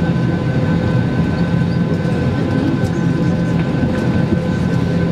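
Steady cabin drone inside a stationary Airbus A320: a constant rush of air with a low hum and a few thin, steady whining tones above it.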